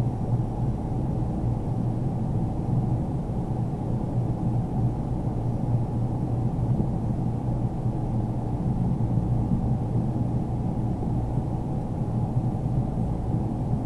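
A steady low hum and rumble of background noise, level throughout, with a strong low band and no distinct clicks or knocks.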